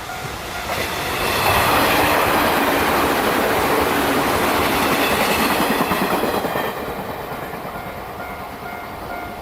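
A train passing close by at speed, its wheels and running noise swelling about a second in and fading after about seven seconds. A level-crossing warning bell rings at the start and again near the end, drowned out while the train goes by.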